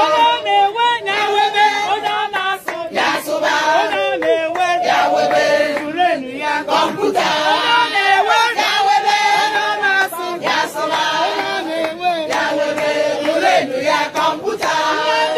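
A group of women singing a praise song together in Igbo, many voices at once, loud and continuous.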